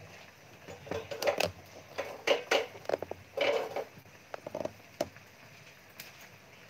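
Lumps of charcoal knocking and clinking in a wire grill basket as it is handled and set over a gas burner: a scatter of short, irregular knocks.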